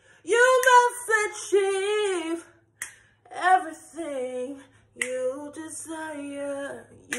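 A woman singing a cappella, her voice sliding and wavering through about three phrases with short breaks between them.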